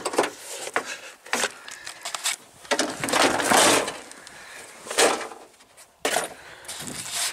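Irregular scuffing and handling noises with a few sharp knocks, and a longer rustle about three seconds in, as someone moves around an open truck door in snow.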